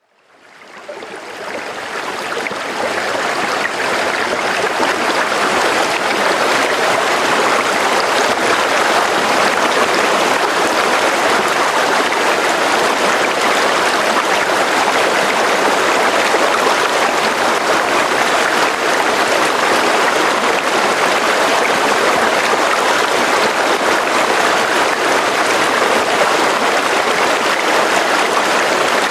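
Steady rush of running water, fading in over the first few seconds and then holding even.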